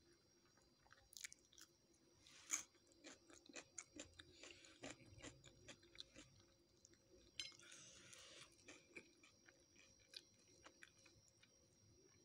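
Person chewing a meal of spiced fried chips, fried chicken and lettuce salad close to the microphone: faint, irregular crunching and biting clicks, the sharpest crunch about two and a half seconds in.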